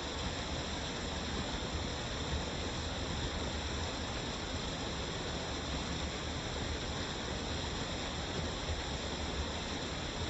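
Waterfall: a steady, even rush of falling water with no changes.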